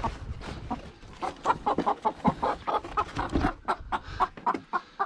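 Young hens clucking in many short, quick notes. A low rustle of a cardboard box being handled runs under the first few seconds.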